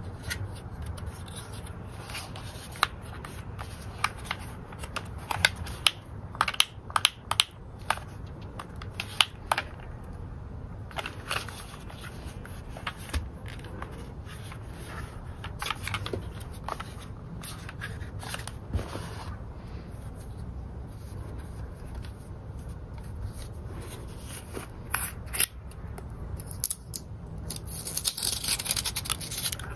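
Hands handling a hard plastic toy bubble gun: scattered clicks and taps of plastic. Near the end, a crinkly scratching as the foil seal is peeled off a bottle of bubble solution.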